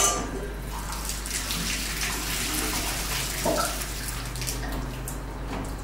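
Sage water being poured from a saucepan through a small metal strainer: a steady splashing stream of liquid, after a short metal knock at the start.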